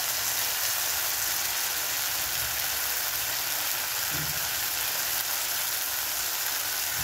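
Diced carrots and onions sizzling in hot oil in a clay cooking pot: a steady, even hiss.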